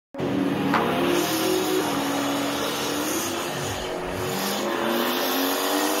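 Car engines revving at high power, their pitch rising and falling, with tires squealing against the pavement.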